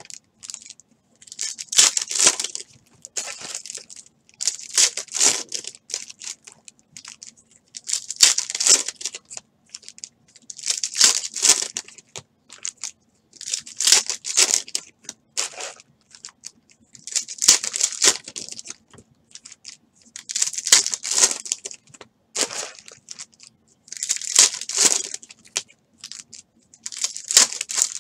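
Foil trading-card pack wrappers crinkling and tearing as packs are ripped open one after another, in about nine bursts roughly three seconds apart.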